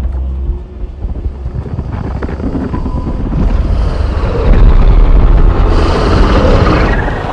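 Film sound design: aircraft engines droning in a blizzard, with wind noise. Low rumble swells to its loudest a little past halfway and eases off near the end.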